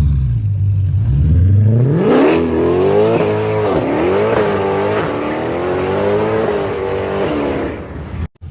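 Mercedes-Benz C63 AMG's 6.2-litre naturally aspirated V8, breathing through an aftermarket IPE (Innotech Performance Exhaust) system, rumbling low and then revving up sharply about two seconds in. The revs stay high, wavering up and down, and ease off near the end.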